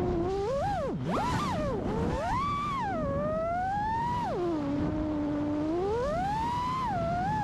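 FPV quadcopter's brushless motors (Hypetrain 2306 1750KV) whining, the pitch sliding up and down constantly with the throttle as the drone dives and climbs, over a rushing noise of propwash and wind. Past the middle the pitch drops low and holds for over a second, then climbs again.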